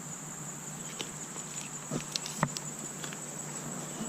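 Steady high-pitched chorus of insects in summer vegetation, with a few scattered light clicks and knocks, the loudest about two and a half seconds in.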